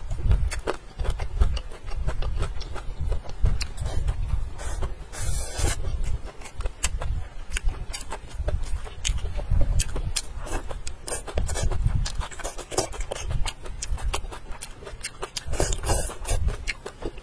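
Close-miked eating: a person chewing mouthfuls of leafy greens and rice, with many sharp wet smacks and clicks. There are two short hissy slurps, about five seconds in and again near the end.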